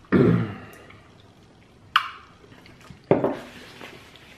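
Eating and drinking at a table: a gulp from a glass bottle just after the start, a sharp click of a plastic fork against a takeaway food container about two seconds in, and another swallow or mouth sound about three seconds in.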